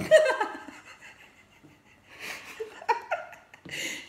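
Two women laughing: a loud burst of laughter right at the start, then more broken bursts of laughter in the second half.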